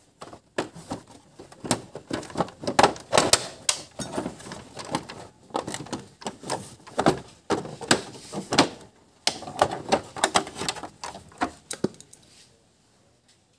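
Irregular clicking, knocking and rattling of hand tools and a body panel as the side fairing of a Honda Wave 100 motorcycle is unbolted and worked off. The clatter dies away near the end.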